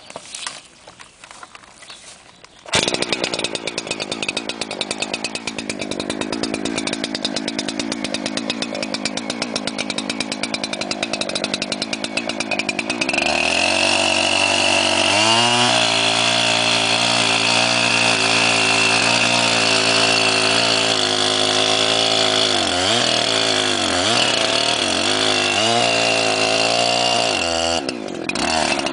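Husqvarna 372XP chainsaw's 70.7 cc two-stroke engine starting suddenly about three seconds in and running, first at a lower rough speed. About 13 seconds in it speeds up to a high steady note, which dips briefly in pitch several times later on.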